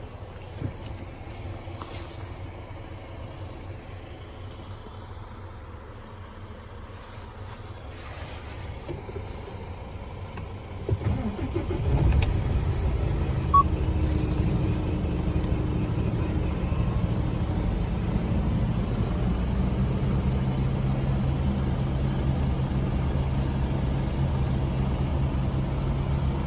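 Mercedes-Benz Actros 1845's straight-six diesel, heard from inside the cab, cranked and fired about eleven seconds in, then settling into a steady idle. Before the start the cab is fairly quiet, with a low hum and a few clicks.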